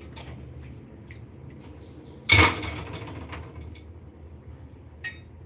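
A kitchen utensil clatters once, loudly, about two seconds in, with a short faint ring after; a faint click follows near the end.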